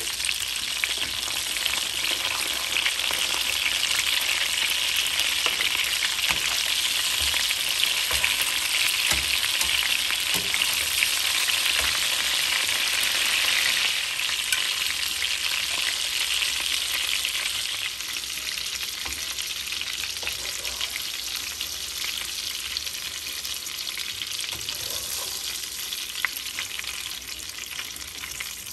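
Food sizzling as it fries in a hot pan, a steady hiss that gets quieter about halfway through and again a few seconds later.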